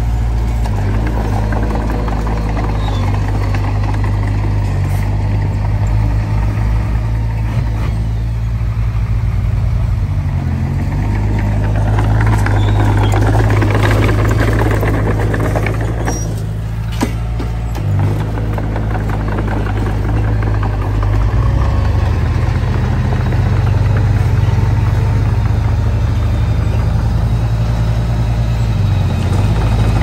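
A heavy diesel engine of the earthmoving machinery runs steadily at a low speed. Its note dips briefly a few times, and there is a rougher, louder stretch just before the middle.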